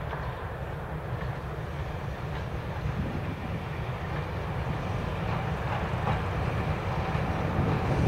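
Diesel locomotive approaching, a low engine rumble growing steadily louder.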